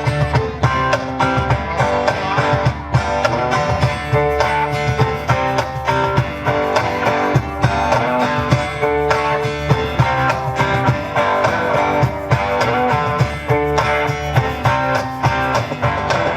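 Live rock band playing an instrumental passage led by guitars over a steady drum beat, with no singing.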